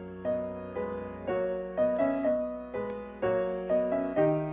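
Piano playing slow, sustained chords, about two a second, each ringing and fading: the introduction before the hymn's singing begins.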